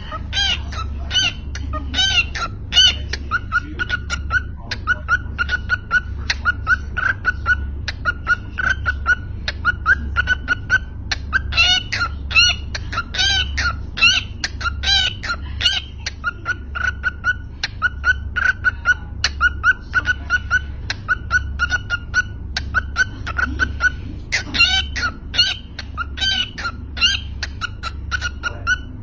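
Cockatiel chirping over and over in short whistled notes, a few a second, breaking into louder warbling chatter at the start, again about twelve seconds in, and once more near the end.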